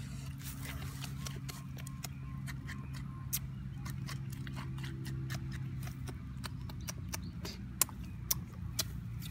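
A spoon stirring and scraping a chili mixture in a hard shell bowl: scattered light clicks and scrapes, with a few sharper knocks near the end, over a steady low hum.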